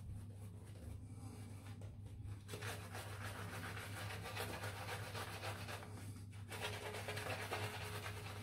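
Omega Evo Cardinal shaving brush being worked over a lathered face, its bristles giving a faint, scratchy rubbing sound as the shaving-soap lather is built up for the final pass. The rubbing grows stronger about two and a half seconds in.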